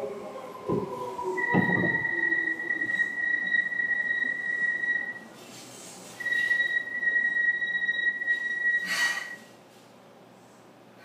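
Aboard a Seibu 2000 series train, a high, steady whistling tone sounds twice, each lasting a few seconds, with a short rushing noise just after the second.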